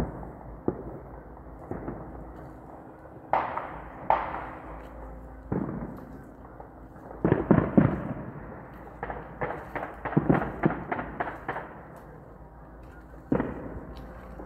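Distant explosive bangs echoing over a neighbourhood: scattered single reports, a cluster of louder bangs about halfway through, then a quick string of cracks, roughly four a second, with one more bang near the end.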